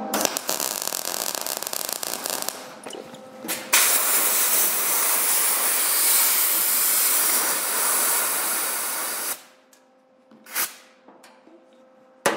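MIG welder arc crackling for about three and a half seconds as a tack weld goes onto a steel fender patch. Then a compressed-air blow gun hisses for about five seconds to cool the fresh weld, cutting off suddenly, followed by a couple of light knocks near the end.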